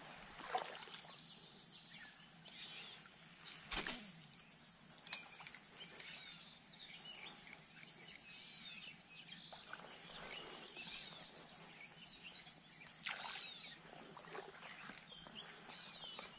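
Streamside outdoor ambience: birds singing over a steady high-pitched hiss. A few brief knocks and rustles come through, the clearest about four seconds in and near thirteen seconds.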